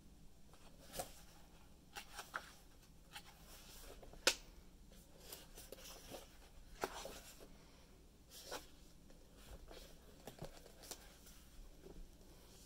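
Pages of a large glossy art book being turned by hand: quiet paper rustles and flicks with scattered short crisp snaps, the sharpest about four seconds in and another near seven.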